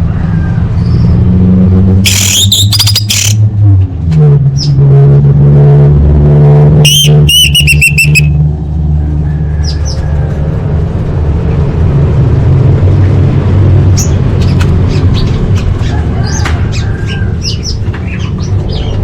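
Orange-headed thrush song: a run of short high chirps and whistles, with two loud harsh calls about two and seven seconds in, the second one falling in pitch. A steady low hum runs underneath.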